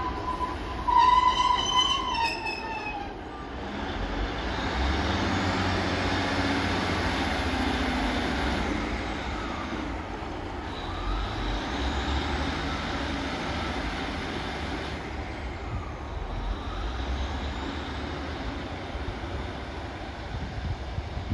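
Class 150 Sprinter diesel multiple unit pulling away, its underfloor diesel engines running steadily under power and fading as the train draws off. A brief loud high-pitched squeal in the first few seconds drops in pitch as it ends.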